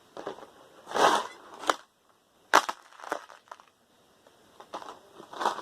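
Loose metal screws clinking and rattling in a few short bursts and sharp clicks as they are sorted with a magnet, the magnetic ones going back into a container.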